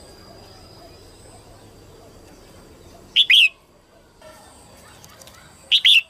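Female red-whiskered bulbul calling: two short, loud chirping phrases, one about halfway through and one at the very end. This is the female call that keepers play to stir male bulbuls into singing.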